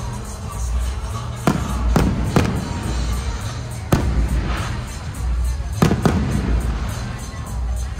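Aerial firework shells bursting in about six sharp bangs, a few of them in quick pairs, over music playing underneath.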